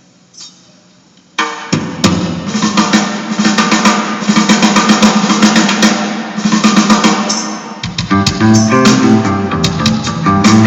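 A faint steady hum, then a rock band crashes in together about a second and a half in, a drum kit with snare and cymbal hits to the fore. Pitched bass notes come through more clearly near the end.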